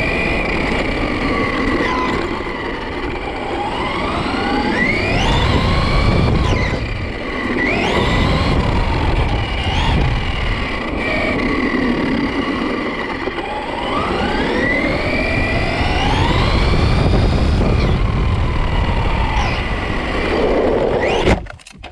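Brushless electric motor of a Maverick Quantum MT Flux RC monster truck whining as it is driven, its pitch rising and falling again and again with the throttle, over a low rumble. The sound drops away sharply near the end.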